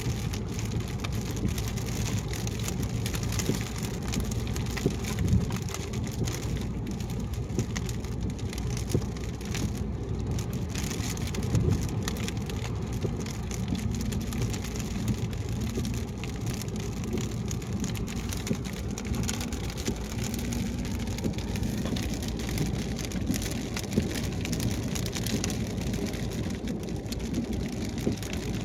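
Rain falling on a car driving at highway speed: a steady hiss with many small drop ticks over a constant low road and tyre rumble and a faint engine hum.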